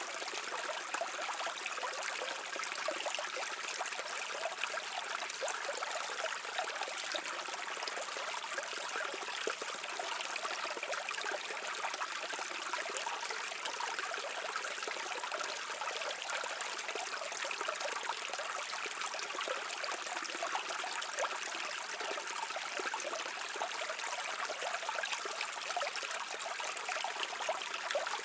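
Creek water running and trickling over stones, a steady babbling rush with many small splashes.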